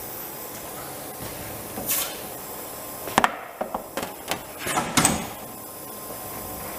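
Teknek LCM 750 PCB cleaning machine running with a steady hiss, broken by a handful of sharp knocks and clacks in the middle, the loudest about three seconds in.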